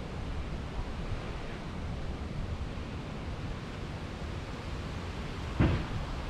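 Hurricane Helene's gusty wind rumbling on the microphone and rustling the garden's leaves. A brief loud thump comes about five and a half seconds in.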